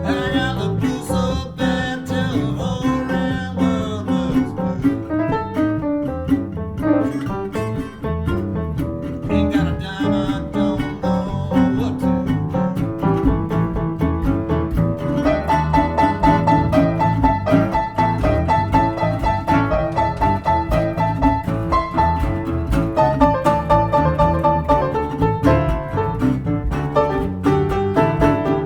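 A small band playing a cover of an old-time country blues song, with plucked strings over a low bass line. A higher melody line comes in about halfway through.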